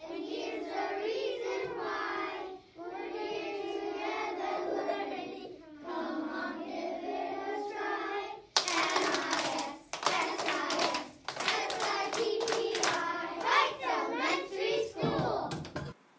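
A class of young children singing their school song together. About halfway through, hand claps join in over the singing for several seconds.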